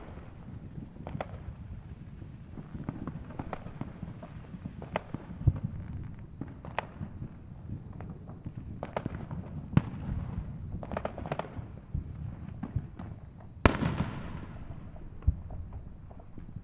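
Fireworks and firecrackers going off, scattered sharp pops and crackles at irregular intervals. One bang about three-quarters of the way through is the loudest, with a tail that fades over about a second.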